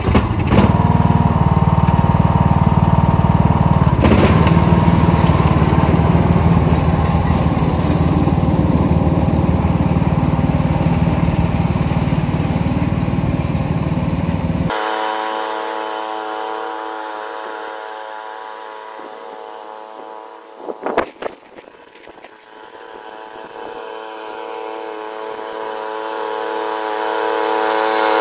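Riding lawn mower's engine running on a test run after its blades were sharpened and rebalanced, loud as it pulls away. About halfway through its deep rumble cuts out suddenly. The engine fades as the mower moves off, with a short knock at the quietest point, then grows louder again as the mower comes back.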